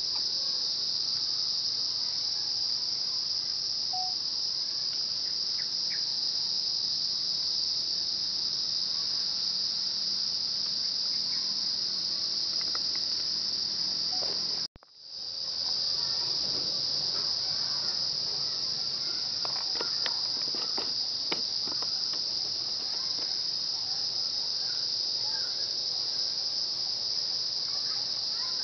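Steady, high-pitched chorus of insects, unbroken except for a moment about halfway through when it cuts out and comes back.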